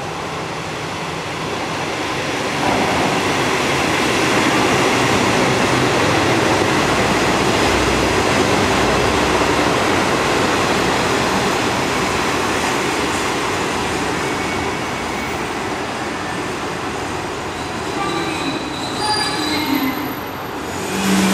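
Kantō Railway 2100-series diesel railcar pulling into the platform: its engine and wheels run in loud as it passes close by, then it slows, with a few squealing brake tones near the end as it comes to a stop.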